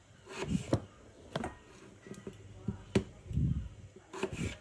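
Kitchen knife slicing raw potatoes into wedge-shaped strips: a handful of sharp, irregularly spaced knocks as the blade goes through and hits the board, with one duller thump about three and a half seconds in.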